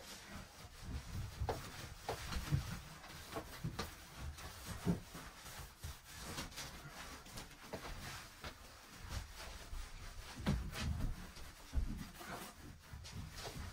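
Paper towel rubbing and wiping across varnished wooden wall paneling in irregular strokes, with soft bumps and knocks from handling.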